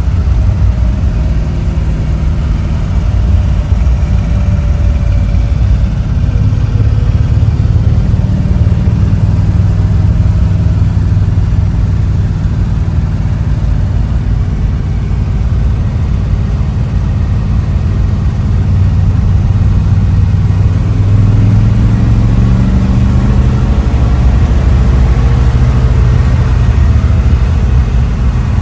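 Old car being driven, its engine running with a steady low note whose pitch shifts with speed and rises about three quarters of the way through.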